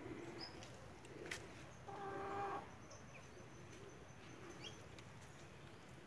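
Quiet farmyard ambience with one short hen call about two seconds in and a few faint, high bird chirps.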